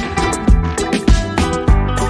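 Background music with a steady beat, drum hits about every half second over a bass line.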